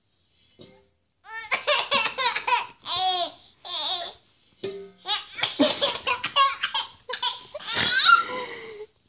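A baby laughing in repeated high-pitched bursts, with a short knock about eight seconds in.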